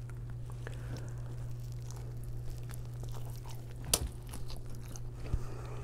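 Someone biting into a crispy-crusted chicken bake, a stuffed bread roll: soft handling rustles, then one sharp crunch of the crust about four seconds in and a smaller one near the end, over a steady low hum.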